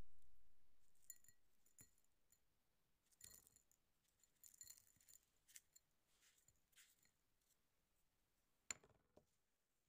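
Faint, scattered light clicks and short rustles of dry ingredients, sugar and then cornflour, going into a non-stick saucepan. There is one sharper click near the end. A low rumble fades out in the first second or two.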